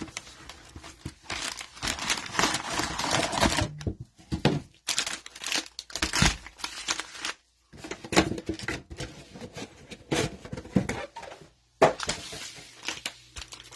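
Cellophane wrappers of trading-card cello packs crinkling and tearing as they are ripped open by hand, in irregular bursts with a few brief pauses.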